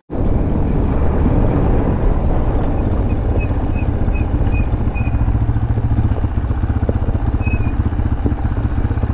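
Small off-road vehicle engine running steadily as it rides along a dirt road, heard from a camera on the rider, with a heavy low rumble; the sound cuts in abruptly at the start.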